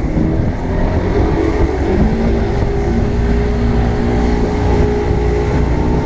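Bass boat's outboard motor accelerating: its pitch climbs over the first two seconds or so, then holds steady at speed.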